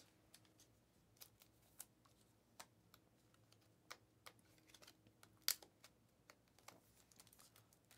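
Faint, irregular clicks and flicks of Panini Mosaic trading cards being slid off a stack and handled one at a time. The loudest click comes a little past halfway.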